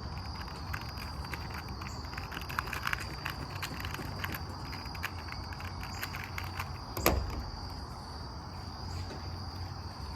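Rubik's cube being turned quickly, with many faint, irregular plastic clicks and a sharper knock about seven seconds in. A steady high-pitched whine runs under it.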